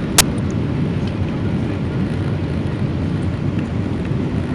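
Steady low rumble of a Boeing 777-300ER's GE90 jet engines, with a single sharp click about a quarter of a second in.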